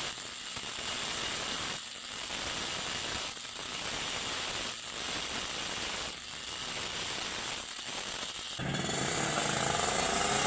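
Electric die grinder cutting inside the ports of a Yamaha F1ZR two-stroke cylinder block: a steady grinding whine broken by short pauses about every second and a half. Near the end it gives way to a two-stroke motorcycle engine revving up.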